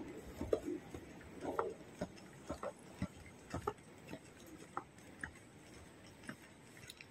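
Scattered light taps and clicks, several a second at uneven spacing, over a faint steady background: handling noise and footsteps of someone walking with a handheld phone.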